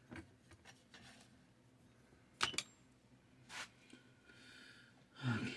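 Small clicks and taps of thin laser-cut plywood model parts being handled and set down on a workbench, with a sharp double click about two and a half seconds in and a softer one a second later. A brief low vocal sound near the end.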